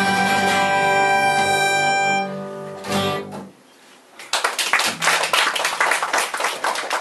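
A live acoustic band of guitar, upright bass and keyboard ends a song on a held chord, closing with a last strum about three seconds in. About a second later the audience bursts into applause.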